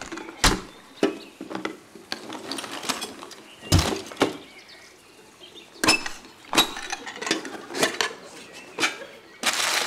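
Sharp metallic clicks and clinks of an aluminium lunch box and an aluminium case being handled: latches snapping and lids knocking, with one heavier knock about four seconds in. Near the end a rustling noise starts.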